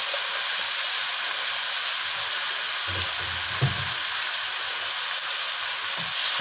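Oil and soy-sauce seasoning sizzling steadily in a wok around a frying fish and sliced red bell pepper.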